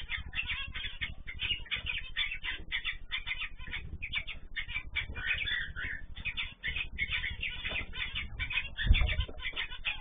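A flock of cage birds (cockatiels, zebra finches and canaries) chirping and calling continuously in quick, overlapping short notes. There is one low thump about nine seconds in.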